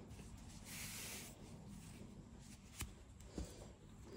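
Soft rustle of yarn being pulled through crocheted fabric while sewing with a needle, strongest about a second in, with two light clicks from handling later on.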